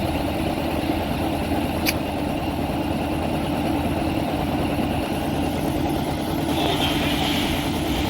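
Rice harvesting machine's engine running steadily with an even hum, with one sharp click about two seconds in.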